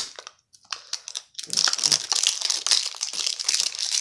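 Packaging wrapper crinkling and crackling as it is peeled off a toy slime container: a sharp snap at the start, scattered crackles, then dense, steady crinkling from about a second and a half in.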